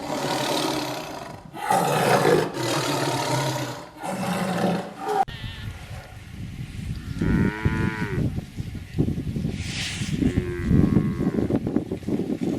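Cattle mooing: three long, rough calls in the first five seconds, then shorter moos whose pitch rises and falls.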